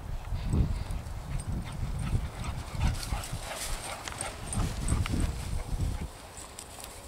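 Dogs playing and tussling in long grass: rustling, scuffling and irregular thudding footfalls.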